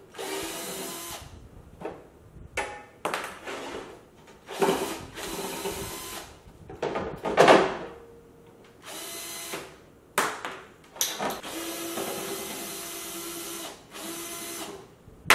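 Cordless drill drilling out the plastic foot glides on a chrome steel-tube chair frame, running in several short bursts and one longer steady run near the end.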